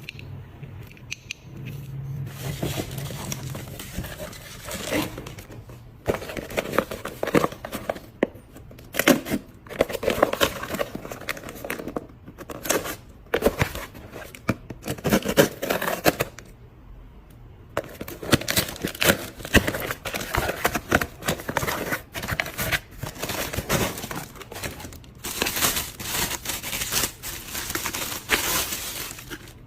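Packaging and small gadgets being unwrapped and handled by hand: irregular rustling with many short clicks and taps, pausing briefly now and then.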